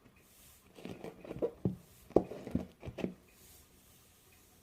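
A few short squeaks and taps as hands squeeze and turn the rubber inner bladder of a cut-open cloth dodgeball, checking where it leaks air. They come in a cluster between about one and three seconds in.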